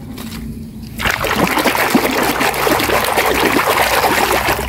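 A hand scrubbing and swishing in a basin of foamy, muddy wash water. The busy splashing and sloshing starts about a second in.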